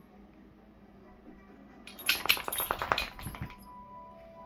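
Dog collar tags jingling in a quick run of metallic clinks lasting about a second, in the middle, with faint background music.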